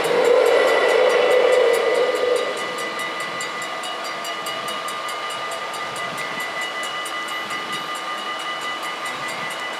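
Stadler GTW diesel railcar running over the level crossing, its rumble dying away about two and a half seconds in. The crossing's mechanical bells keep ringing with rapid, even strokes throughout.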